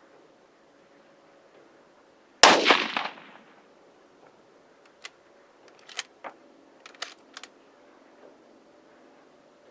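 A .243 rifle fired once with its suppressor removed: one loud, sharp report whose echo dies away over about a second. A few short, sharp clicks follow a couple of seconds later.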